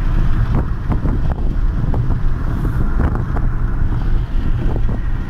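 Road and wind noise inside a moving car: a steady low rumble with wind buffeting the microphone and occasional light knocks.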